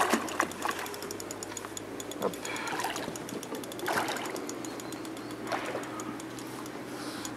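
A hooked carp splashing and thrashing at the surface close to the bank as it is played toward the landing net, in short sharp bursts a second or two apart.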